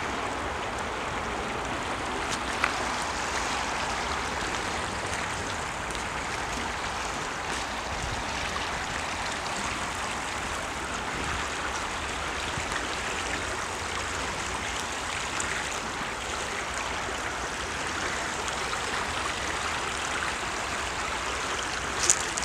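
Shallow creek running over stones, a steady rushing of water. A single sharp click sounds about three seconds in, and a few more near the end.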